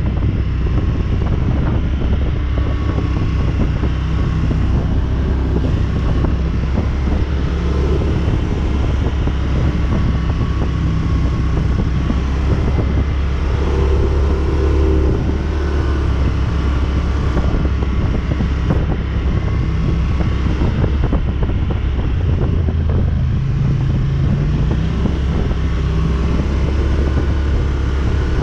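ATV engine running under way, its note shifting up and down now and then, with wind buffeting the microphone.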